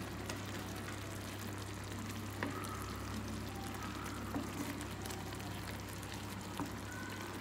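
Vermicelli simmering in a thin tomato-masala liquid in a pan, bubbling with small scattered pops, while a wooden spatula stirs it through. A steady low hum runs underneath.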